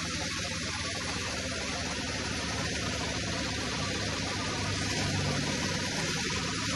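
Horizontal band saw running, a steady mechanical hum under a constant hiss, slightly louder about five seconds in.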